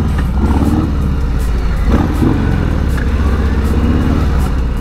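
Harley-Davidson Sport Glide's V-twin running at low speed in traffic, with a repeating rubbing noise from a wheel, "funheca, funheca". The dealer takes it most likely for a brake pad touching the disc rather than a failed wheel bearing.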